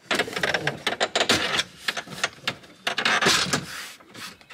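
Hard plastic lower dash trim panel on a 2007–14 GM truck rubbing, scraping and clicking as it is pushed and lined up into place, in irregular bursts that are loudest about a second in and again past three seconds.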